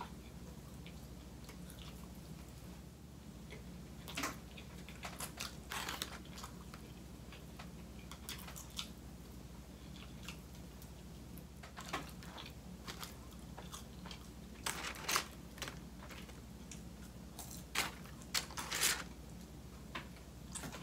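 A person eating fried chicken wings close to the microphone: chewing with irregular clusters of crunchy clicks and bites, heaviest about a third of the way in and again near the end.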